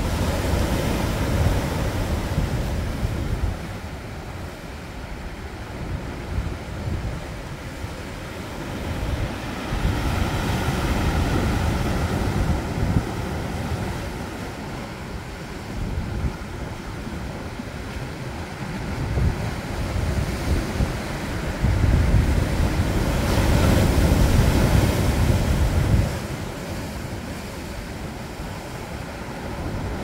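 Sea waves breaking and washing over a rocky shore, the noise swelling and easing in surges every few seconds. Wind buffets the microphone with a low rumble; the loudest surge comes about two-thirds of the way through and drops off suddenly.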